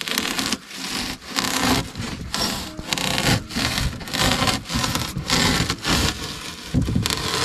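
Serrated bread knife sawing through foil-faced rigid foam insulation board in repeated back-and-forth strokes.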